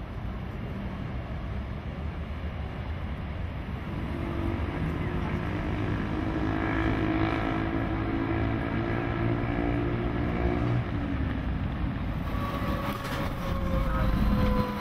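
Street traffic: a steady low rumble, with a vehicle engine's hum coming up about four seconds in and fading near eleven seconds. After a cut, the sound of riding in a moving vehicle, its engine whine falling slowly in pitch as it slows.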